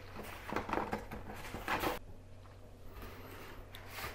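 Cardboard delivery box being opened: its flaps scrape and rustle as they are pulled back, several times in the first two seconds, then only faint light handling of the contents.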